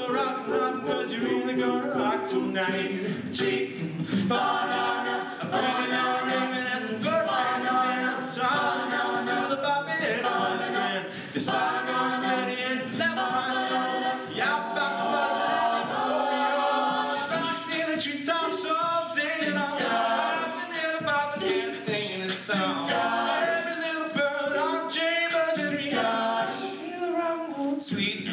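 Mixed-voice a cappella group singing live, several voices holding and shifting close-harmony chords with no instruments.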